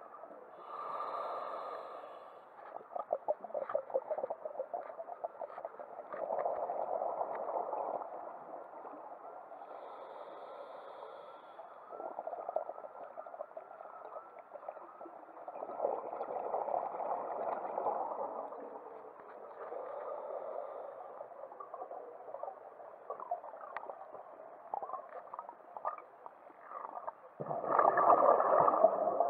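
Scuba diver breathing through a regulator underwater: the hiss of each inhalation alternates with the gurgle and crackle of exhaled bubbles in slow, repeating cycles, loudest near the end.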